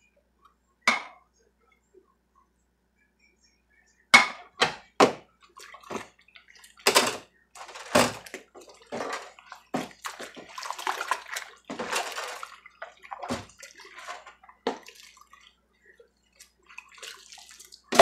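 Dishes being washed by hand in a sink of soapy water: splashing and sloshing broken by scattered knocks of dishes, with a sharp knock at the end.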